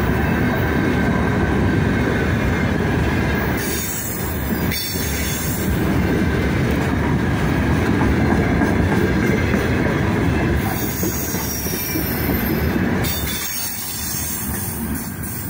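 Freight train of open gondola wagons rolling past close by, its steel wheels on the rails making a steady rumble. The sound fades near the end as the last wagon goes by.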